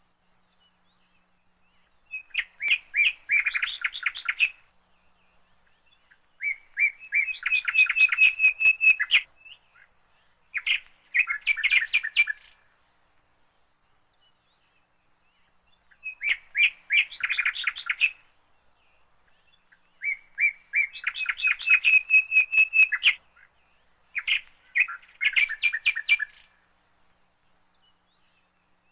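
A small bird chirping in phrases of rapid notes, each phrase two to three seconds long with quiet pauses between. The same run of three phrases comes twice, like a looped recording.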